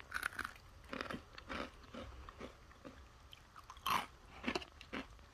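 A person biting into and chewing crunchy food: a series of short, irregular crunches, the loudest about four seconds in.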